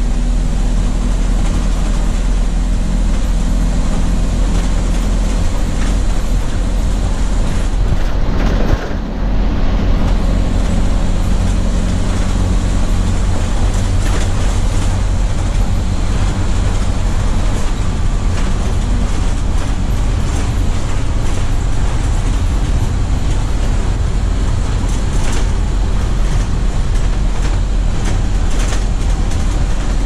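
1982 Chevrolet Blue Bird school bus's 366 V8 engine running steadily at cruising speed, heard from inside the cab along with road and body noise. The level dips briefly about nine seconds in.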